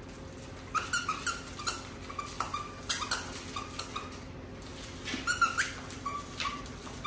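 A pitbull chewing at a squeaky dog toy: the squeaker gives short squeaks with clicky chewing sounds between them. They come in bursts about a second in, around three seconds and again past five seconds.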